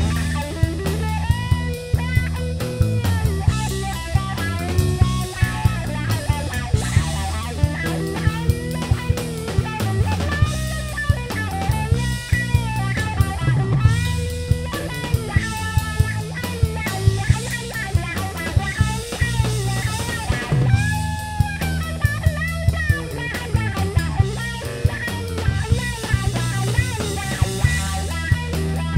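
Live rock trio playing: electric guitar over electric bass and a drum kit, with the guitar line bending up and down in pitch and regular sharp drum hits.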